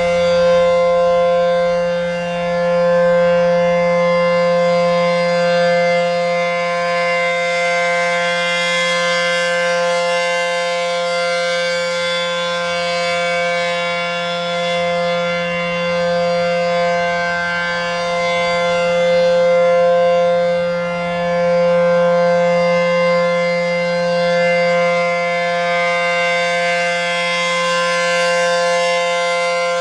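ACA P-15 Penetrator rotating outdoor warning siren sounding the full-alert signal: a loud, shrill, steady tone made of two notes from its 9/12-port chopper. It holds a constant pitch and swells and fades in loudness every few seconds as the rotating head sweeps past.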